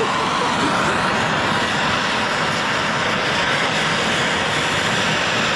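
Gas blowtorch flame hissing steadily, heating a seized sludge trap plug in a motorcycle crankshaft to free it.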